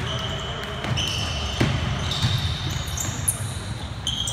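Basketball sneakers squeaking on a hardwood gym floor in a string of short high squeals, with a basketball bouncing once about a second and a half in, over the low rumble of a large gym.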